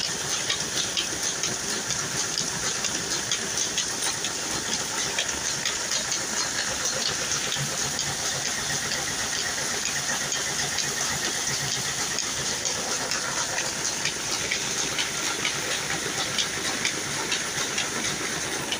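Belt-driven oil expeller (screw press) running steadily, a constant mechanical rattle with a dense fine crackle and hiss as the cake is pressed out.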